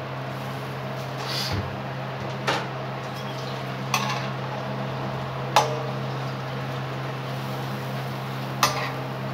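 A spatula knocking against an iron tawa: four sharp clinks a second or more apart, over a steady low hum.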